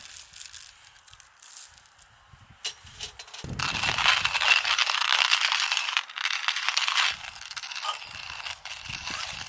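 A stainless hand coffee grinder being handled and emptied of ground coffee: light clicks and rattles, then a dense crackling scrape lasting about three seconds midway.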